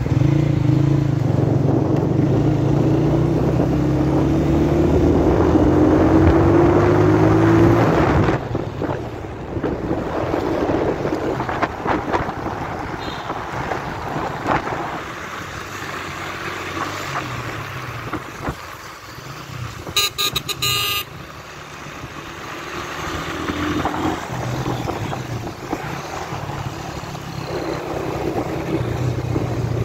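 Road-vehicle engine accelerating, its pitch rising steadily for the first eight seconds, then traffic noise on a road. A short, high horn toot sounds about twenty seconds in.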